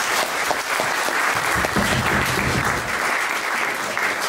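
Audience applauding, a dense, steady clapping that begins to ease near the end.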